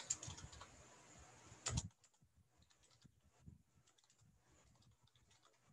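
Faint keystrokes on a computer keyboard: a few soft, scattered clicks, the loudest a little under two seconds in.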